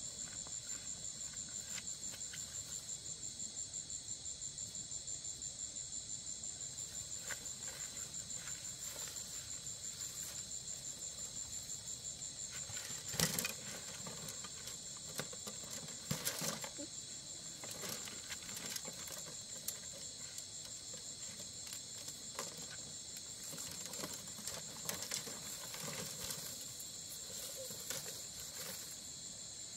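A chorus of night insects keeps up a steady, high, evenly pulsing trill. From about a quarter of the way in, rustling grass and footsteps join it, with a couple of louder knocks near the middle as stems and a bamboo basket are handled.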